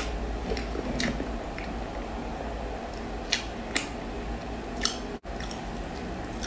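Close-miked chewing of soft chocolate cream cake, with a handful of short, sharp wet clicks. There is a momentary break in the sound about five seconds in.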